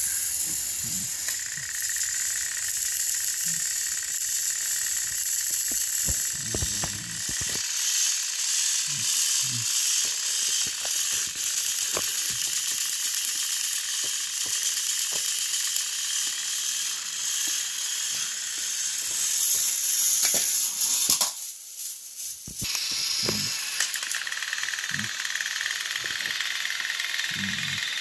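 Battery-powered Thomas & Friends toy engines coupled together, their small electric motors and plastic gears whirring and rattling steadily as they strain against each other on plastic track. The whirring drops out for about a second roughly three quarters of the way through, then comes back.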